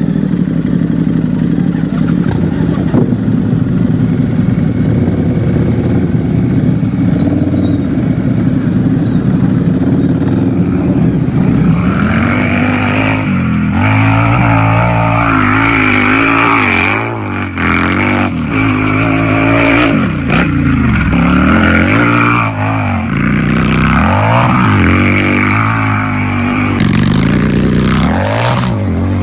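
Harley-Davidson V-twin motorcycle engine idling steadily, then revved repeatedly from about twelve seconds in, the engine pitch rising and dropping back with each blip of the throttle.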